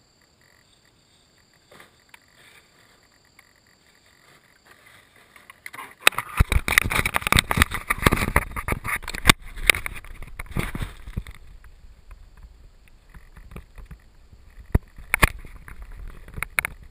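Faint frog calls for the first few seconds, then from about six seconds in loud rubbing, scraping and knocking as a hand reaches into the model plane's cabin and handles the onboard camera. The noise eases after about eleven seconds, leaving a few sharp clicks near the end.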